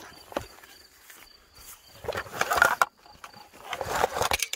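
Zipper on the fabric pouch of a foldable solar panel being pulled open in two rasping strokes, about two and four seconds in.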